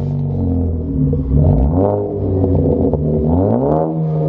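Car engine revving: it runs steadily, then its pitch climbs twice, about a second and a half in and again near the end, holding the higher pitch at the close.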